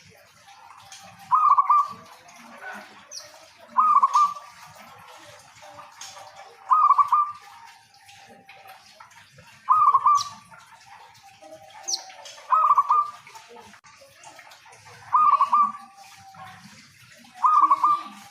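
A local-type zebra dove (perkutut) in full song, giving a short burbling coo about every three seconds, seven times.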